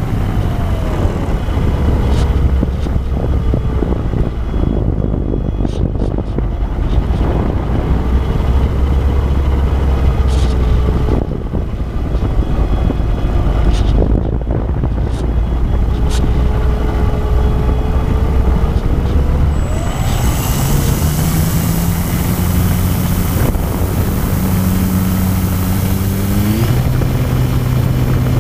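Electric motor and propeller of an E-flite Apprentice RC trainer plane in flight, under heavy wind rush. The motor's whine glides up and down as the throttle changes, and steps up in pitch near the end.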